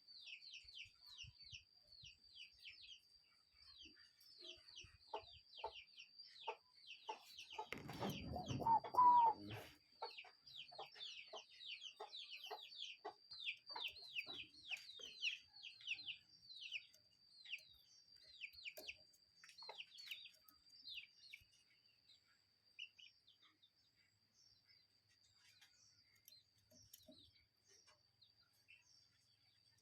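A bird giving a long, rapid series of short, high, falling notes, several a second, that thins out and stops about two-thirds of the way through, over a steady faint high-pitched whine. A louder, lower sound with a brief pitched note breaks in about eight seconds in.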